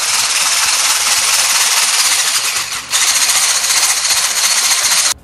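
Electric stick blender with a whisk attachment running steadily at speed, whipping egg whites in a glass bowl toward soft peaks. The motor dips briefly just before three seconds in, then switches off abruptly at the end.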